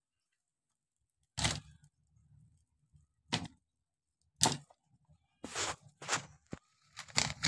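Power-tool armatures dropped one by one into a clay stove's fire, each landing with a sharp knock: about eight knocks at uneven gaps, starting about a second and a half in.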